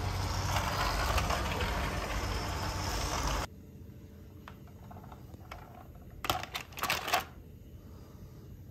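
Small electric motor and plastic wheels of a radio-controlled toy tanker truck running over a tiled floor, cutting off abruptly a little over three seconds in. About three seconds later comes a short clatter of hard plastic toy vehicles being handled.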